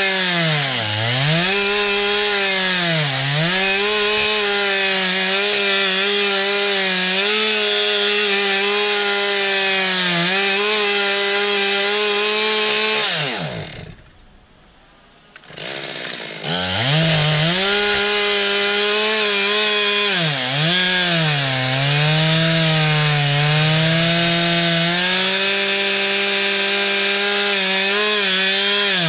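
Stihl two-stroke chainsaw cutting a log, its revs dipping and recovering again and again as the chain bites into the wood. About halfway through, the engine winds down and drops away for about three seconds, then runs and cuts again.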